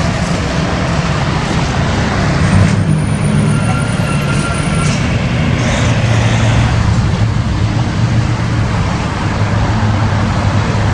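Semi truck towing an oversize modular home section driving past, its diesel engine running steadily under tyre and road noise.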